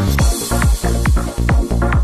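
Electronic dance music in a trance style with a steady, evenly repeating kick-drum beat.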